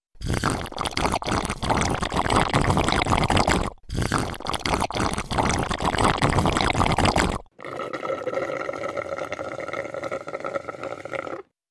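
Water splashing and gurgling in two stretches, each cut off abruptly, then a steady hum with several held tones for the last few seconds.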